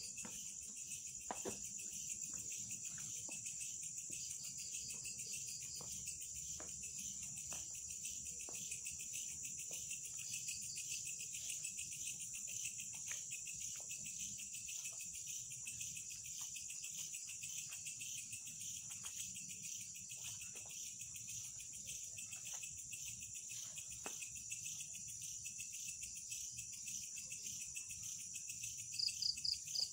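Night insects, crickets, trilling in a steady high chorus, with faint scattered ticks. Near the end comes a short burst of about four rapid, louder high chirps.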